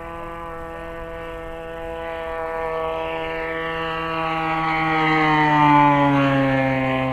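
Desert Aircraft DA-35 single-cylinder gas two-stroke engine of a 73-inch AJ Laser 230z RC aerobatic plane in flight. Its steady note grows louder, peaks about six seconds in, and drops in pitch as the plane passes.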